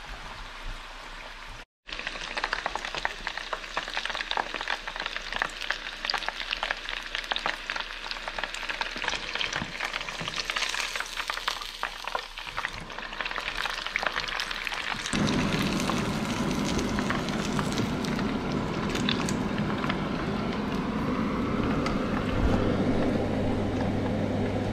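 Battered cuttlefish pieces deep-frying in hot oil in a saucepan, with a dense crackling sizzle. About two-thirds of the way through, the crackle gives way to a steadier, lower hiss with a low hum.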